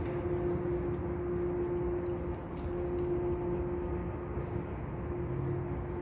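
Distant foghorn holding one long, steady low note over a low background rumble.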